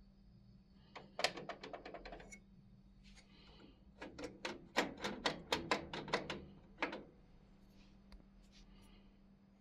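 Two quick runs of sharp clicks and taps, hard plastic against metal: a cassette case knocked and slid along a laser cutter's metal X-axis rail and frame as it is used as a spacer gauge.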